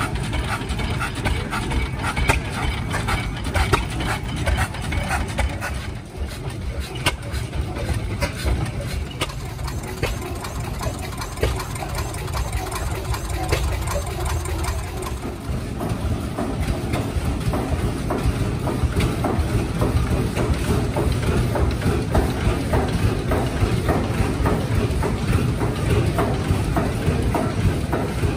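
Several vintage stationary engines running together: a jumble of irregular firing knocks over a steady low rumble.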